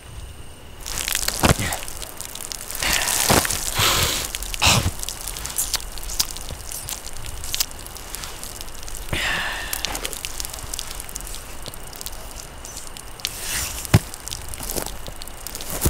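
Irregular crackling and rustling of dry twigs and pine-needle litter, with sharp snaps every so often and a short high squeak about nine seconds in.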